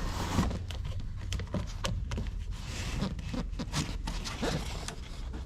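Irregular light clicks, small knocks and rustling from handling things at close range, over a low steady hum.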